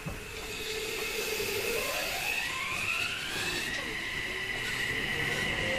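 Toei 6300 series (later batch) train's Mitsubishi IGBT VVVF inverter whining as the train accelerates. A steady low tone for about a second and a half, then the pitch rises over about two seconds and levels off into a high whine, getting louder throughout.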